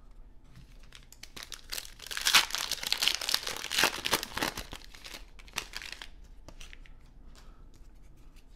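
Foil wrapper of a 2022 Bowman Baseball card pack being torn open and crinkled by hand, a dense crackle that builds about a second in, is loudest for a few seconds, then dies away.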